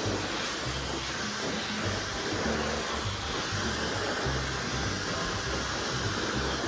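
Dyson Supersonic hair dryer blowing steadily, a constant airy hiss, over background music with a bass line.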